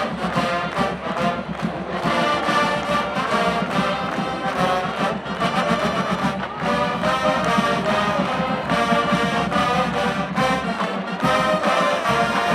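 College marching band playing, brass over a steady drum beat.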